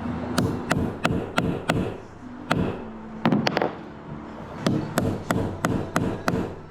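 Runs of sharp blows struck on a piece of hardwood, about three a second, with short breaks about two and four seconds in.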